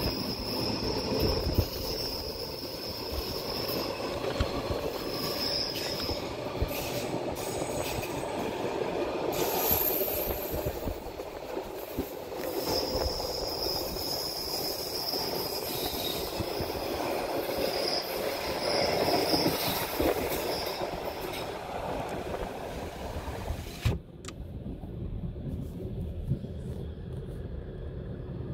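Car-carrying shuttle train rolling along, heard from inside a car loaded on it: a steady rumble of the wagons on the track, with a thin high wheel squeal that comes and goes. About 24 s in, there is a click and the sound turns abruptly duller, losing its high end.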